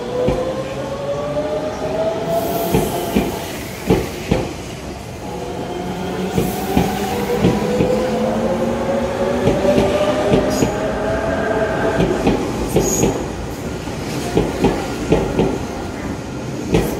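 Tobu 100 series Spacia electric limited express pulling out and picking up speed. Its traction motors whine in a pitch that climbs twice, over a rolling rumble with repeated clacks of the wheels running over rail joints.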